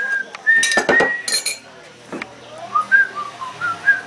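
A person whistling a tune in held notes, then shorter rising and falling ones. Sharp clinks of tableware come about a second in.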